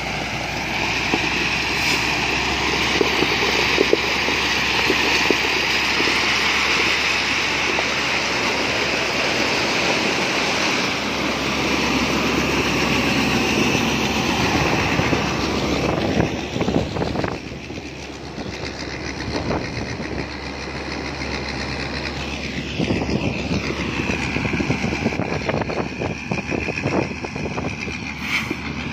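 Caterpillar 120K2 motor grader's diesel engine running under load as it spreads crushed-stone sub-base, with the stone crunching and grinding under the blade and tyres. The sound drops and grows quieter about two-thirds of the way through as the grader pulls away.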